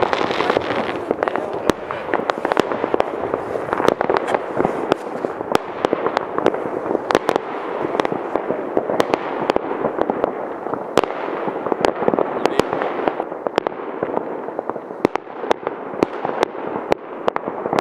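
Many New Year's fireworks rockets going off at once: a continuous crackling din of bursts with frequent sharp, irregular bangs throughout.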